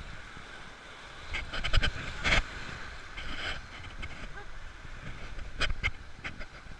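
Round raft of a river rapids ride riding through its water channel: rushing, splashing water with wind on the microphone, broken by scattered short knocks and splashes.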